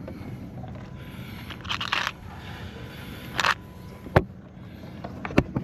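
Hand tools working on the turbo-to-manifold nuts: two short scrapes, then two sharp metallic clicks, over a steady low hum.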